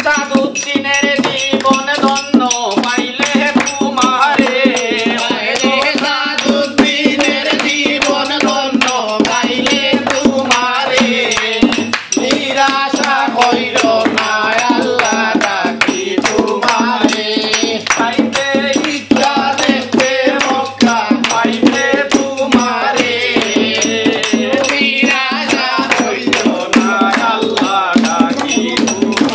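Live Bengali devotional folk song: voices singing over a rope-tensioned barrel drum (dholak), a frame drum, jingling hand cymbals and hand clapping, in a steady driving rhythm.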